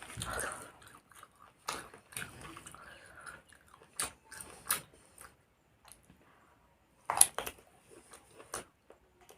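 Close-miked mouth sounds of a person eating: chewing and biting, with sharp smacks and clicks at irregular intervals.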